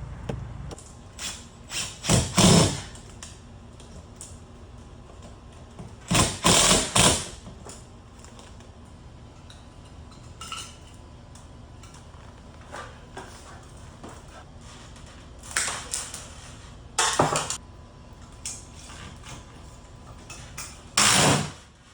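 Intermittent clattering and scraping of tools and hardware being handled, in four louder bursts of about a second each with small clicks and knocks between them.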